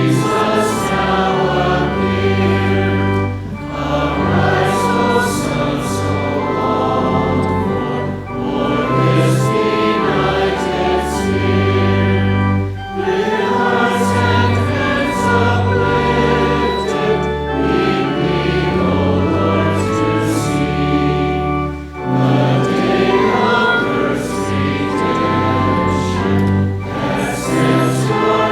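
A hymn sung by many voices with organ accompaniment, moving in phrases with short breaks between the lines.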